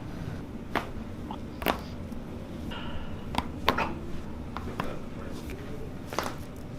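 Five sharp pops spread over several seconds, the loudest about two and four seconds in, over a steady low hum: spinal joints cracking under a chiropractic adjustment.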